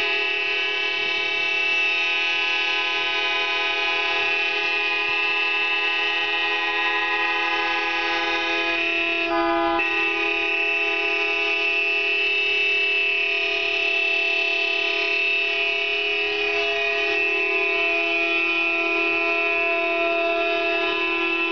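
A public warning signal hooting loud and steady: many tones held at one unchanging pitch and sounding together, with a brief break in the sound about nine seconds in.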